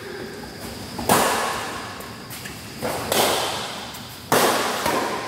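Badminton rackets striking a shuttlecock in a rally: four sharp hits, the second one softer, each ringing out in the large hall's echo.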